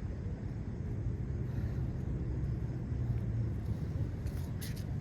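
Steady low rumble of outdoor background noise in rain, with a few short sharp clicks near the end.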